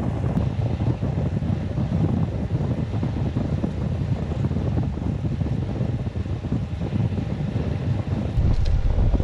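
Wind buffeting the microphone of a camera riding along on a road bike at speed, a steady low rumbling rush that grows louder near the end.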